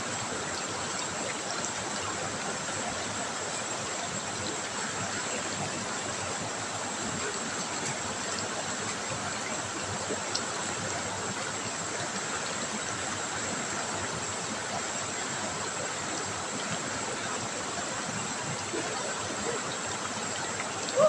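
River water trickling and flowing in a steady, unbroken rush. A brief, louder, sharp sound comes at the very end.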